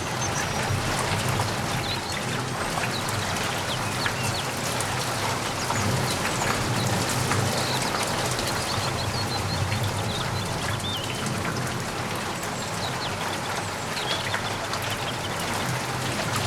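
Steady rain with many drops pattering on surfaces, over a low steady hum.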